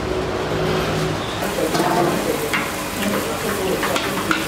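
Kitchen sounds: a steady hiss of oil frying, with short clinks of steel utensils and faint voices in the background. The hiss brightens about a second and a half in.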